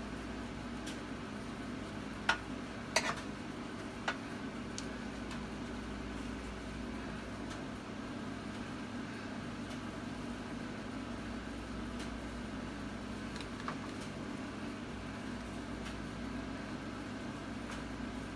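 A metal spoon clicks lightly against a dish or baking pan a few times, about two to four seconds in and once more faintly later, as a butter mixture is spooned over cabbage steaks. Under it runs a steady mechanical hum.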